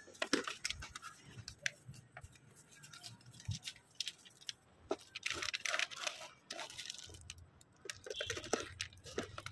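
Plastic wrapper on a six-shot firework cake crinkling and tearing as it is peeled off by hand, with scattered clicks and knocks as the cake is handled and set down.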